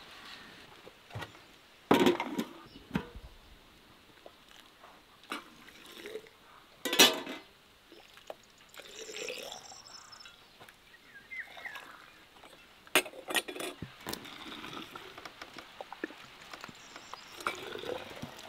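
Metal cup, metal funnel, aluminium pot and glass jars clinking and knocking, with liquid ladled and poured into the jars. A handful of sharp knocks stand out, about two, seven and thirteen seconds in.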